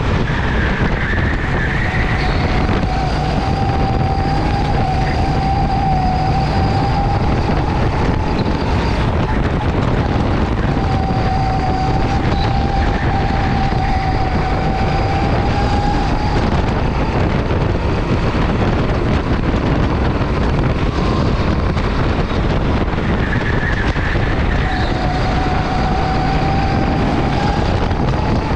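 Go-kart engine running at speed, heavily buffeted by wind on the microphone. Its steady engine note stands out in three stretches of several seconds, each rising slightly in pitch, and sinks into the wind noise between them.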